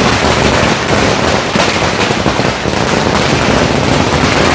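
A string of firecrackers going off in a rapid, continuous crackle of sharp bangs, loud throughout.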